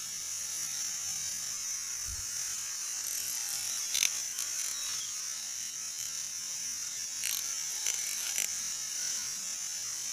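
Black snake firework tablets burning with a steady high fizzing hiss, broken by a few sharp little crackles, the clearest about four seconds in.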